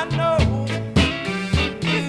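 Background music: an upbeat soul-funk band track with a steady, repeating bass line and a wavering melody line above it.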